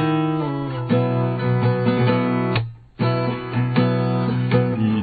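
Acoustic guitar playing strummed and picked chords, with no voice. The playing stops briefly about two and a half seconds in and comes back in on a sharp strum a moment later.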